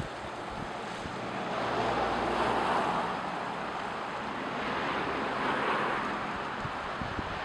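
Ocean surf: waves breaking and washing in, swelling louder about two seconds in and again near six seconds, with wind on the microphone.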